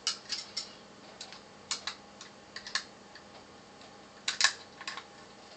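Scattered small clicks and taps of metal parts as a hard drive's magnet assembly is pried apart, the loudest pair near the end.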